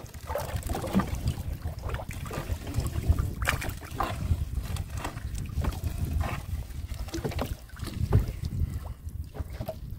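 Outdoor scene from a small boat on water: wind rumbling on the microphone, with irregular knocks and water sounds from the boat and net handling.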